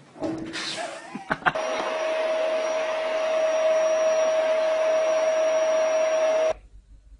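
A household electric appliance comes on after a few clicks, with a steady hum and whine over a rushing noise, and cuts off suddenly about five seconds later.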